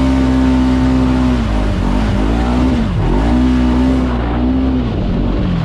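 Segway Fugleman UTV engine driving off-road, its revs rising and falling several times as the throttle is opened and let off.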